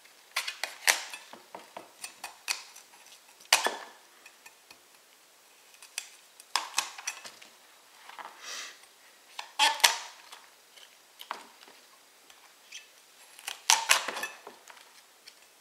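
Large kitchen knife cutting leaves and stalk off a head of cauliflower on a plastic cutting board: crisp crunches as the blade goes through the stalks and taps as it meets the board, in irregular short clusters a second or two apart.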